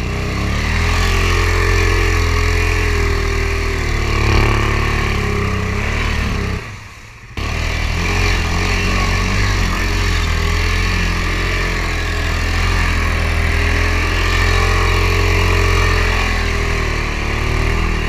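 Yamaha Grizzly 600 ATV's single-cylinder four-stroke engine running under load as it is ridden through mud, its pitch rising and falling with the throttle. The sound drops out briefly about seven seconds in.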